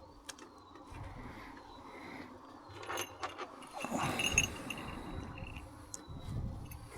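Small hawk's bell on a Harris hawk jingling as the bird moves, with rustling and a few clicks. The ringing is strongest from about four seconds in.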